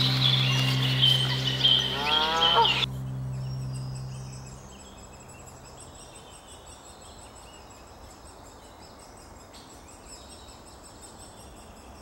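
A held low musical note with a short run of rising calls about two seconds in; it cuts off and fades out over the next couple of seconds. Then small birds chirp and sing in woodland.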